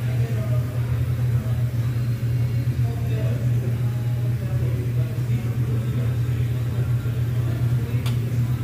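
Meat sizzling on a tabletop Korean barbecue grill under a steady low hum, with indistinct voices in the background. There is a single click near the end.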